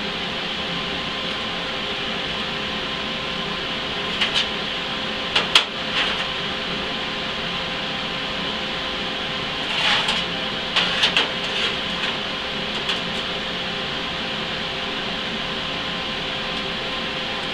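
Steady machine hum, with a few light clicks and knocks as steel angle and square-tube pieces are set down and shifted on a steel welding table, mostly clustered around a third and two-thirds of the way through.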